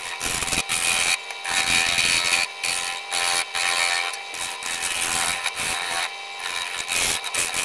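Turning gouge cutting into a spinning cherry-burl-and-epoxy blank on a wood lathe: a rough, scraping rush of cutting noise that comes and goes as the tool is pushed into the wood and eased off, with several short breaks.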